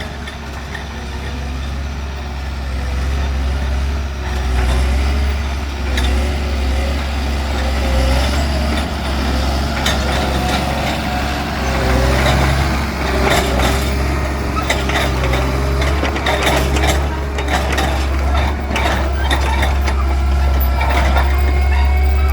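Tracked forestry machine running under load: a steady low diesel hum with a wavering whine over it. From about halfway in, a run of sharp clanks and knocks joins it.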